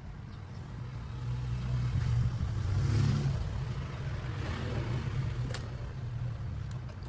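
A passing motor vehicle's engine rumble that grows louder to a peak about three seconds in, then fades, with a short click just after five seconds.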